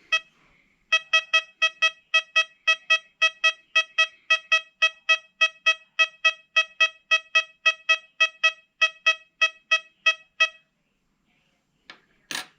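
XP Deus 2 metal detector sounding its target tone: a rapid train of short, same-pitched beeps, about four a second, as a 1965 clad quarter is passed back and forth over the coil. The beeping stops about ten and a half seconds in and is followed by a single click.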